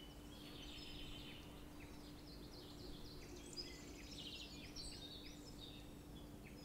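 Faint birdsong: many short, high chirps scattered throughout, over a steady low hum.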